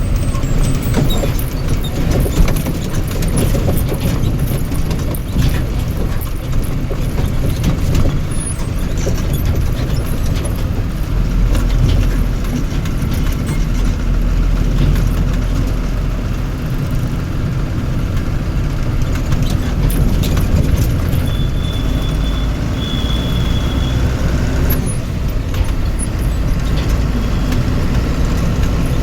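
Vehicle engine running steadily with a low rumble, along with frequent rattles and knocks. A short high tone sounds about 22 seconds in.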